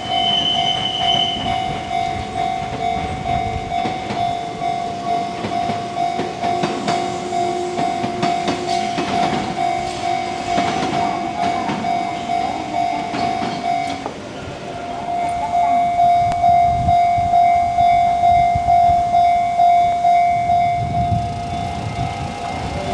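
Japanese level-crossing warning bell ringing in a steady, rhythmic repeating clang while a Kintetsu electric train passes over the crossing, its wheels clattering over the rail joints. The bell breaks off briefly about fourteen seconds in, then resumes louder.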